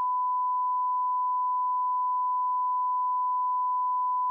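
Steady 1 kHz sine test tone at one constant pitch and level: the reference line-up tone that goes with colour bars, used to set audio levels.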